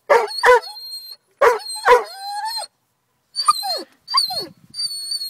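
Ridgeback dog barking and whining: four sharp barks in two quick pairs, then high whines that slide down in pitch. It is the agitated vocalising of a dog that won't calm down.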